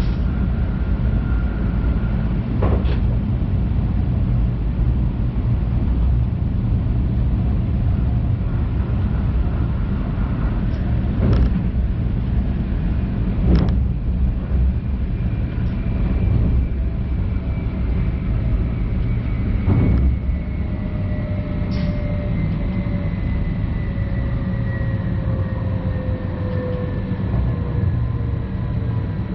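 Stadler FLIRT Sm5 electric multiple unit running on track: a steady low rumble broken by a few sharp clicks from the wheels on the track. From about twenty seconds in, a whine from the traction equipment slowly falls in pitch as the train slows.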